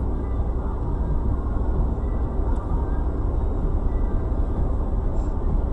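Steady low rumble of a car driving on a snow-covered road, heard from inside the cabin: engine and tyre noise.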